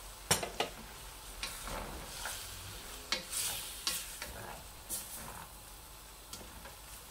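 A wooden spoon stirring chicken and vegetables frying in a stainless-steel pan: a steady sizzle with scattered knocks and scrapes of the spoon against the pan.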